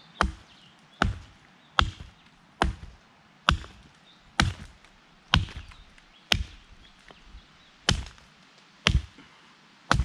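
Hatchet chopping into a fallen log: sharp single strikes of the blade into the wood, about one a second, about a dozen in all, with a slightly longer gap between two of them past the middle.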